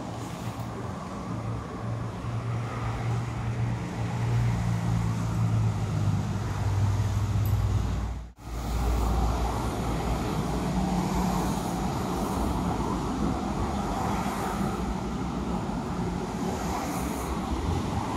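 Perodua Kancil engine running steadily while its air conditioning is charged with R134a refrigerant. The sound drops out suddenly for a moment about eight seconds in, then carries on steadily.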